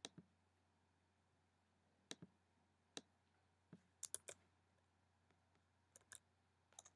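Computer mouse and keyboard clicks: about a dozen short, sharp clicks in small groups of one to three, over a faint steady low hum.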